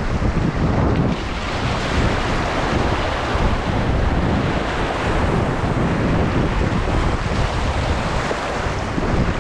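Whitewater rapids rushing steadily around a raft, with wind buffeting the microphone.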